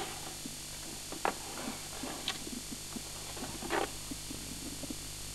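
Steady tape hiss and mains hum from a worn home-video tape played back through a Grundig VS200 VCR, with a few soft knocks and handling noises, the clearest near the start, about a second in, in the middle and near the end.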